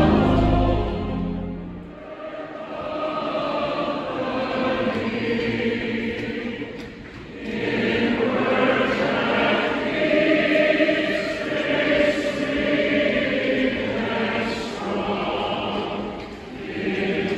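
Large choir singing: a loud, low held chord that ends about two seconds in, then sung phrases with short breaks between them.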